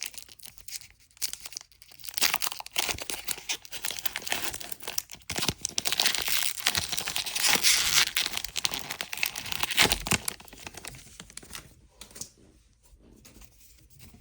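Crinkling and tearing of a Pokémon booster pack's foil wrapper as it is torn open and handled. The dense crackle builds about two seconds in, is loudest toward the middle, and dies down to faint handling noise near the end.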